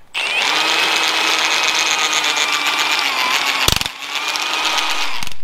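Hand-held power tool spinning the welded hex of a mechanical bottle jack, running its ram up: a steady motor whine over a mechanical rattle. There is a short knock and a brief dip just before four seconds in.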